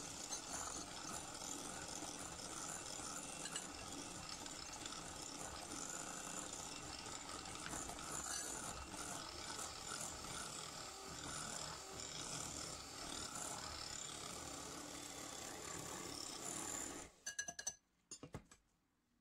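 Electric hand mixer running steadily, its beaters churning chocolate cake batter in a glass bowl. The motor cuts off about 17 seconds in, followed by a few light clicks.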